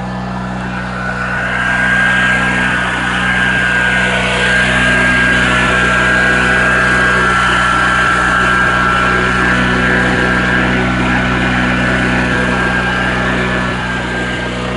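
Coleman Powermate Vantage 8000 portable generator running steadily and loud, freshly started after sitting almost a year. Its level rises slightly about two seconds in, then holds.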